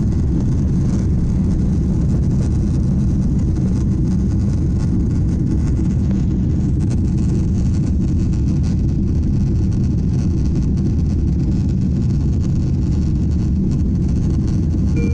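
Steady low rumble of a Boeing 777-300ER's cabin noise in flight: engine and airflow noise heard from an economy seat.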